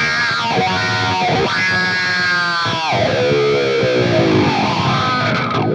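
Distorted electric guitar playing a lead solo with string bends and vibrato, through a high-gain Line 6 Helix amp model and OwnHammer speaker-cabinet impulse response. The phrase stops right at the end, leaving a short ring-out.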